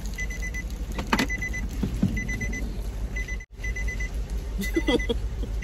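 An electronic beeper sounding quick runs of about four short, high beeps, the runs repeating about once a second, like a car's warning chime or a fuel pump's prompt.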